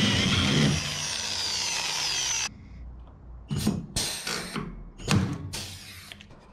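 Powered rivet gun setting rivets. One run of about two and a half seconds with a falling whine, then two pairs of short bursts.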